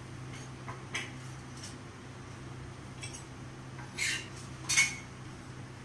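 Metal spatula clinking and scraping against a flat tawa griddle as a roti is cooked: two clinks about four and about four and three-quarter seconds in, the second the loudest, after a few faint clicks, over a steady low hum.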